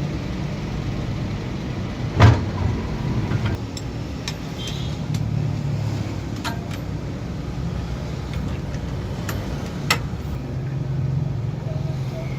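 Metal knocks and clicks from parts and tools being handled while a tire changer is reassembled, over a steady low rumble. A loud knock comes about two seconds in, lighter clicks follow, and another sharp knock comes near the end.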